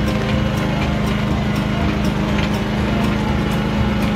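Small garden tractor engine running steadily under load as it tows a wood splitter, with a constant low hum and a faint light tick about twice a second.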